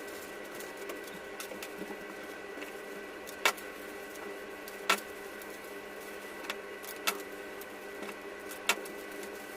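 A parcel being unpacked by hand: a handful of sharp clicks and snaps of packaging, the loudest about a third and halfway through, over a steady electrical hum.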